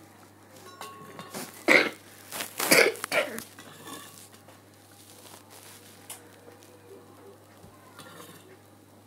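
A person coughing, four or five quick coughs in a cluster about two to three seconds in, with light clinks of a spoon in a steel bowl around it.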